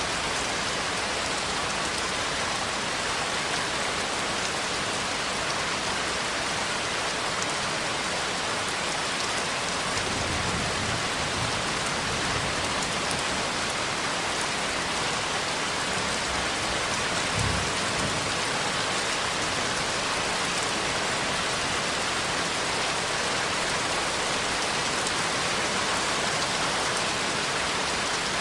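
Steady rain falling, an even hiss of drops, with a couple of brief low rumbles around the middle.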